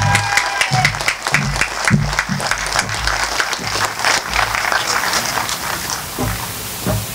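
Crowd applauding, with dense clapping that thins out near the end, over irregular low thumps.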